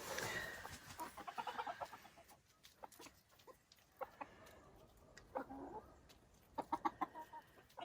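Silkie chickens clucking faintly in short runs of quick clucks, the loudest run near the end.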